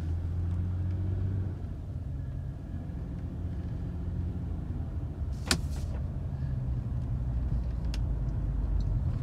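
2011 Nissan Murano's 3.5-litre V6 engine and road noise heard inside the cabin as it pulls away and drives slowly at about 20 mph, the engine near 2,000 rpm. There is one sharp knock or clatter about halfway through and a small click near the end.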